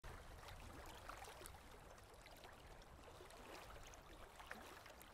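Faint lapping of small waves on a lake at the water's edge, with scattered small ticks and splashes over a low rumble.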